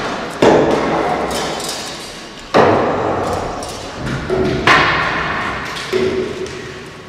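Three loud hammer blows about two seconds apart, each ringing on in a long echo through a large hall, with weaker knocks between them: the nailing at the crucifixion.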